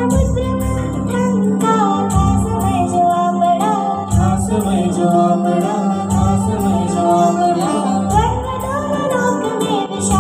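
A woman and a girl singing a Hindi devotional song into microphones, over an accompaniment with a steady drone and a recurring low beat.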